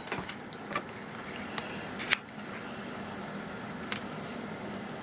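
A few light, sharp clicks and taps over a steady faint hum, the clearest about two seconds in.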